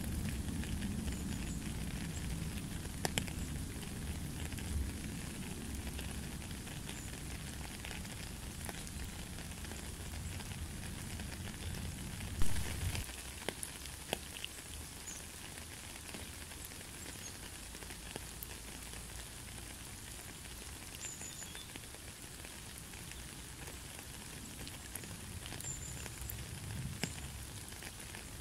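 Rain falling on a puddle and wet gravel path: a steady hiss of rain with scattered drips tapping. A low rumble under it stops about halfway, just as one sharp, loud drip lands.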